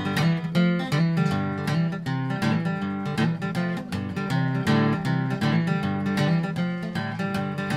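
Background music: an acoustic guitar strumming with a steady rhythm.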